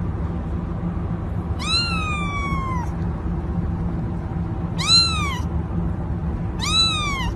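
A cat meowing three times: a long meow about a second and a half in that falls away slowly, then two shorter meows that rise and fall. A steady low rumble sits underneath.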